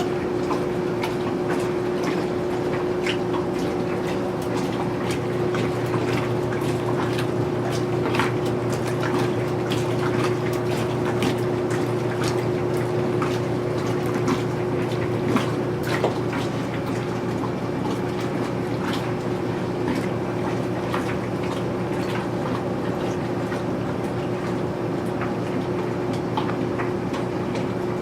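Speed Queen wringer washing machine running: a steady electric motor hum with water sloshing and splashing in the tub, dotted with small clicks.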